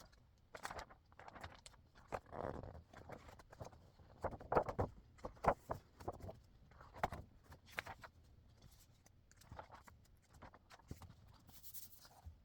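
Hands handling a magazine and its packaging: irregular rustling with scattered light taps and knocks.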